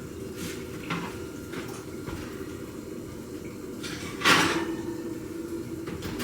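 Kitchen handling sounds: a few light clicks and taps, then one loud knock about four seconds in with a short ringing after it, as of a cupboard, door or pan being handled.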